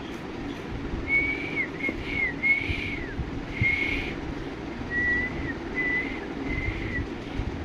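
Someone whistling at a pet parrot: a string of about eight short high whistled notes, several sliding down at the end, over a steady low background hum.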